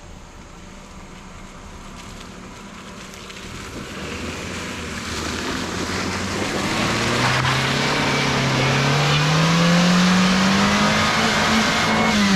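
A motor vehicle approaching and passing close by. It grows steadily louder with rising tyre and engine noise, and its engine note climbs as it nears, then starts to drop right at the end as it goes past.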